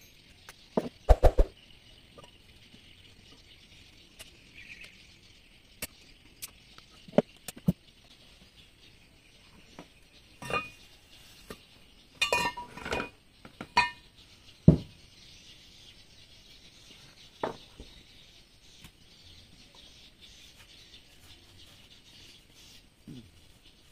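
Scattered metallic clinks and taps of outboard engine parts being handled during reassembly, with a cluster of ringing clinks about ten to fourteen seconds in.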